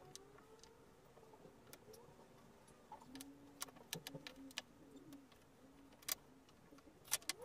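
Faint, scattered clicks and light knocks of small pallet-wood blocks being set down and nudged into place on a plywood board, with a pigeon cooing softly in the background.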